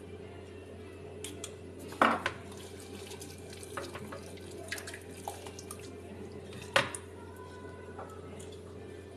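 Soft, wet handling noises as raw chicken is rubbed with salt by hand, with light clicks of a spoon and plastic salt jar, over a steady low hum. Two louder sharp knocks stand out, about two seconds in and again near seven seconds.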